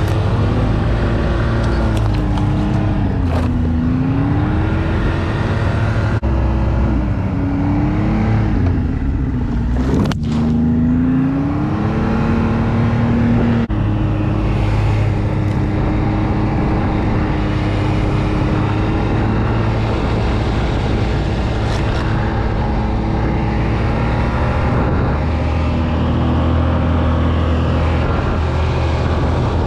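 Snowmobile engine running under load while climbing through snow. Its pitch dips and rises several times over the first dozen seconds as the throttle and load change, then holds steadier.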